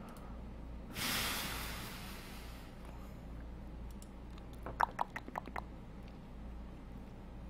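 A long breathy exhale into the microphone, a sigh, starting about a second in and fading over under two seconds; then a quick run of about five clicks a little before the five-second mark, over a low steady electrical hum.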